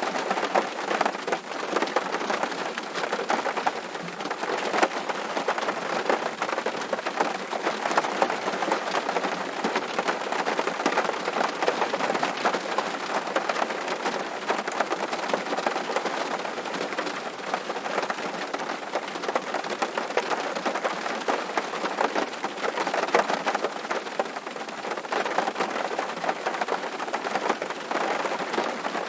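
Rain drumming on a tin roof: a steady dense patter of many drops striking the metal sheets.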